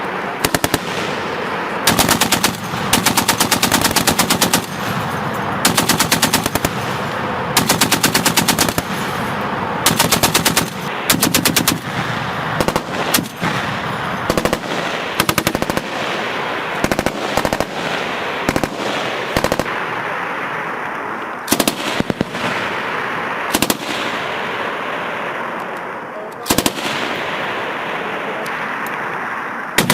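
Machine guns firing in repeated bursts of rapid shots, each burst about half a second to a second and a half long, with a steady rumble of shooting and echo between bursts.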